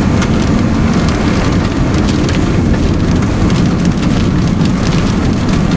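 Steady road and wind rumble inside a moving car, with scattered light ticks on top.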